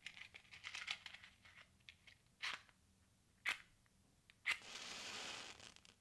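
Faint rustling and crinkling, then three sharp clicks about a second apart; the last click is followed by a hiss lasting about a second.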